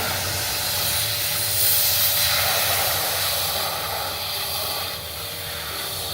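Pressure washer spraying a steady jet of water against the steel wood-furnace barrel, a loud continuous hiss over a low steady hum. The spray is loudest about two seconds in and eases slightly near the end.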